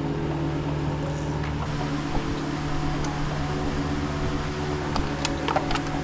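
Steady hum of a fan running, with a few light clicks near the end.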